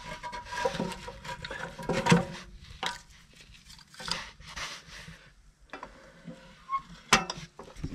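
Split firewood logs being loaded into a small steel wood stove's firebox: wood scraping and knocking against the stove and the other logs, with sharp knocks about two seconds in and near the end.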